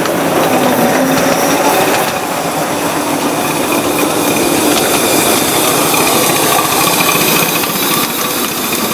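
Miniature 5-inch-gauge locomotive running with a driver aboard: a steady mechanical whine that wavers gently in pitch, over the rattle of small wheels on the rails.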